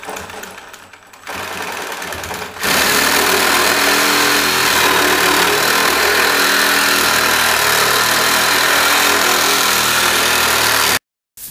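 Reciprocating saw cutting through the bottom of a timber door jamb flush with the floor. The cut starts quieter, then from about two and a half seconds in runs loud and steady until it stops abruptly near the end.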